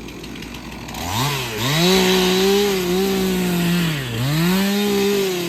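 Stihl MS 362 two-stroke chainsaw revving up to full throttle about a second in and held there. The engine speed sags briefly twice, once just after the rise and more deeply around four seconds in, before climbing back.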